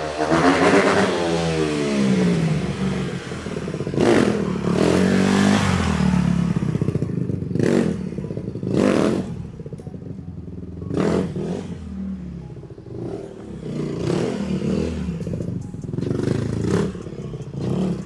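A Honda CRF150R dirt bike's four-stroke single-cylinder engine being ridden hard. The revs climb and drop over and over, with several sharp bursts of throttle.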